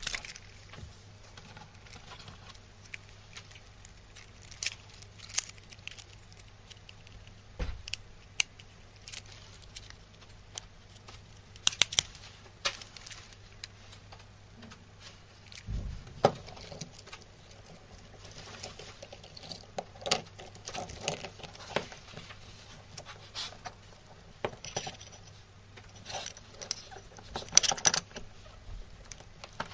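Handling noise from a W960 steel mobile phone watch: irregular clicks, taps and short jangles of its metal link bracelet and case in the fingers, with a few sharper clusters around the middle and near the end, over a faint low hum.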